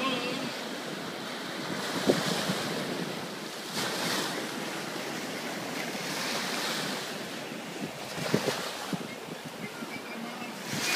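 Small sea waves breaking and washing up a sandy shore, the wash swelling and easing a few times, with wind buffeting the microphone.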